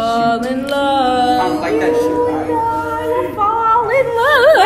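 Girls' voices singing a cappella, holding sung notes; near the end one voice wavers in a wide, exaggerated vibrato.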